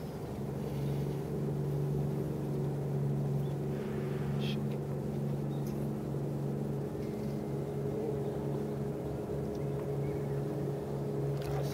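A boat engine running steadily at constant speed, a low even hum.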